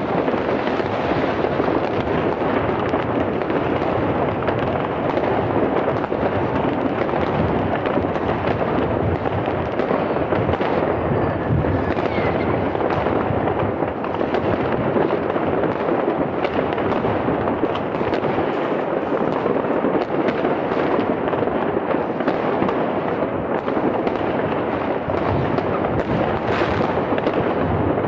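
Many New Year's Eve fireworks rockets and firecrackers going off at once, countless bangs and crackles merging into a steady, unbroken din.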